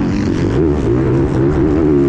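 Motocross bike engine running hard at race pace, its revs rising and falling quickly as the rider works the throttle.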